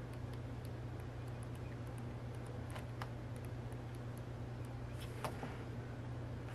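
A steady low hum, with a few faint, light ticks as the pages of a paper planner are turned; the clearest ticks come about three and about five seconds in.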